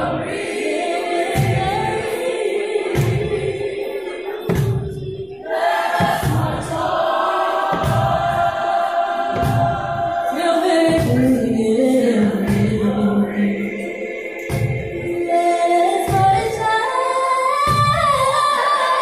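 Live band with keyboards and drums playing a song with a steady beat while a group of voices sings together.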